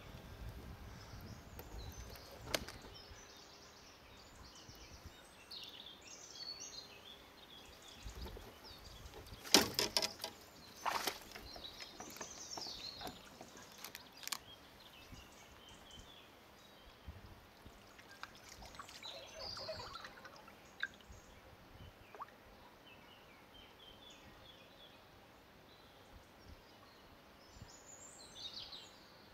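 Small birds chirping and calling in the background, with a cluster of loud, sharp clicks and knocks about ten seconds in.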